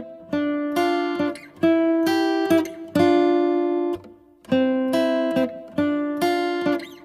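Intro music: chords strummed on a guitar, each struck and left to ring, with a brief pause about four seconds in.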